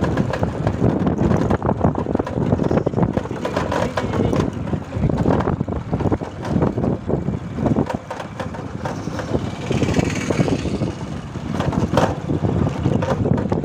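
Motorbike riding along a rough dirt road, heard from the pillion seat: the engine runs under steady wind buffeting on the microphone, which rises and falls in gusts.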